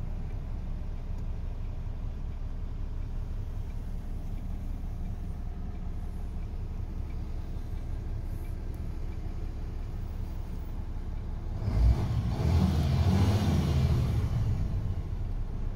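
MAN TGX 41.540's straight-six diesel engine idling steadily, heard from inside the cab. About twelve seconds in there is a thump, followed by a louder rumble with a rushing hiss for about three seconds.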